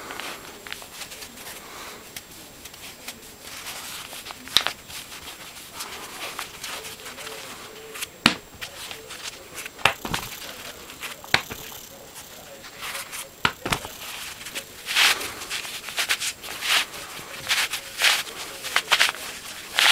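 Fabric rustling and scraping as the layers of a soft plush 2×2×2 puzzle cube are twisted by hand. Several sharp clicks are spread through the first part. The rustling comes in quicker, denser bursts near the end.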